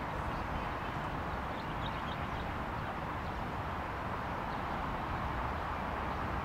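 Steady hiss of distant road traffic, with a low fluttering rumble of wind on the microphone.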